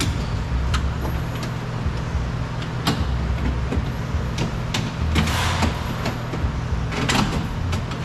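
Clicks and short scraping rustles as a door-glass run channel is worked loose and pulled from a car door frame, over a steady low hum.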